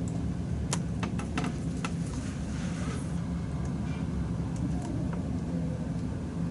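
Toenail nippers cutting long toenails: several sharp snips, most in the first two seconds, over a steady low hum.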